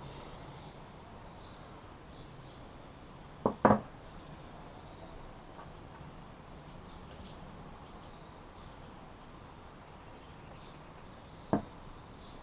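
Small birds chirping on and off in the background, with sharp knocks from tools and hooks being handled on the worktable: a double knock about three and a half seconds in, the loudest sound, and a single one near the end.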